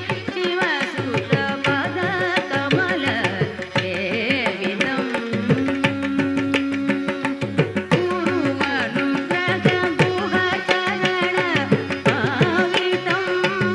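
Carnatic-style Malayalam film song music: a wavering melodic line over steady tabla strokes.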